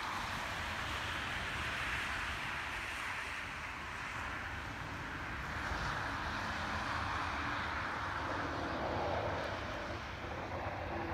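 Road traffic passing on a wet, snowy road: a steady tyre hiss over a low rumble, swelling and fading gently as vehicles go by.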